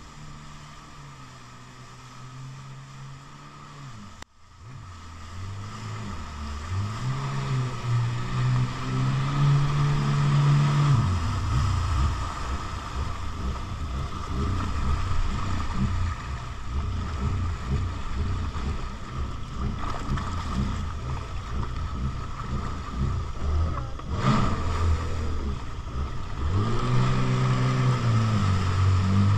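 Jet ski engine running over choppy water, its pitch climbing and dipping as the throttle changes. The sound drops out for a moment about four seconds in, and the ride turns to a rougher rumble from around the middle.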